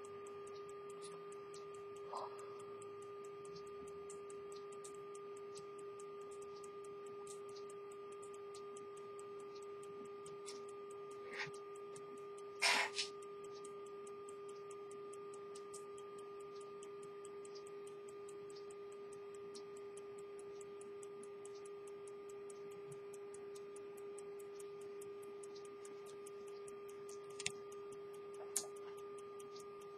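Antique 18th-century English pocket watch movement ticking faintly and evenly, over a steady hum. A few louder clicks from handling the watch and its case come now and then, the loudest about thirteen seconds in.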